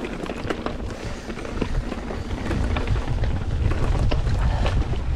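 Mountain bike rolling over a dirt trail, with tyre noise and rapid clicks and rattles from the bike, and wind buffeting the microphone that grows heavier about halfway through.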